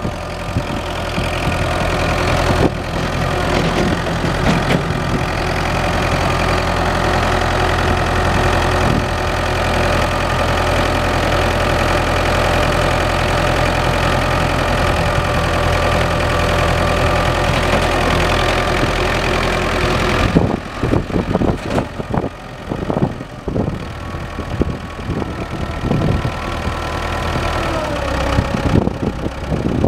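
Massey Ferguson 180 tractor's four-cylinder diesel engine running steadily and loud. About two-thirds of the way through, the sound drops in level and turns uneven.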